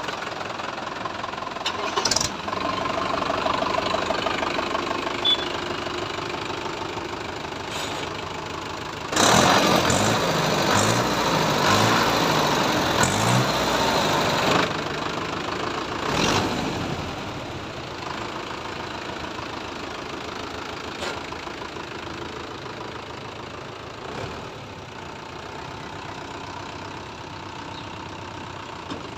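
Mahindra Yuvo tractor's diesel engine running, revved up for about five seconds near the middle, then settling back to a steady idle.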